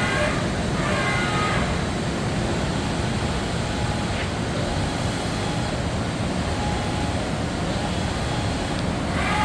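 Yama Seiki VP-2012HD CNC bridge mill running with a steady mechanical noise, with a brief tonal whine near the start.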